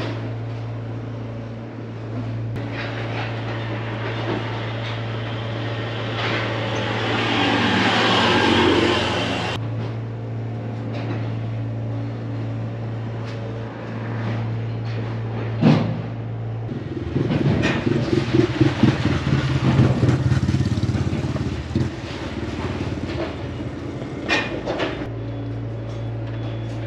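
Street ambience with a steady low hum throughout. A passing vehicle swells and cuts off suddenly about nine seconds in. Later comes a sharp click, then several seconds of louder, fluctuating rattling noise.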